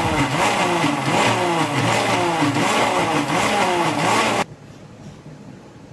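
Mixer grinder motor whirring loudly as its stainless steel jar grinds instant coffee, sugar and ice cubes, the pitch dipping and recovering over and over under the load. It cuts off abruptly about four and a half seconds in.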